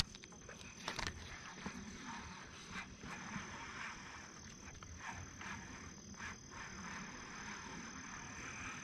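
A sharp click, then the faint, irregular clicking and whirring of a baitcasting reel being cranked slowly, with a steady thin high whine behind it.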